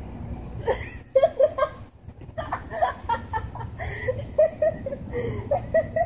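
A person laughing in short, high-pitched bursts, with a steady low rumble underneath.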